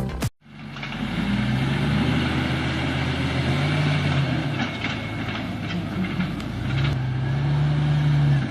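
Music cuts off abruptly, then a logging truck's diesel engine runs, revving up and settling back twice as its hydraulic log crane works, with a few short knocks in between.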